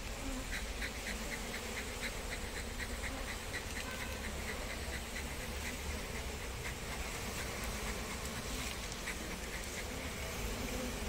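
Indian honey bees (Apis cerana indica) buzzing steadily over the comb of an opened hive. A quick run of faint high ticks, about four a second, sounds over the first several seconds.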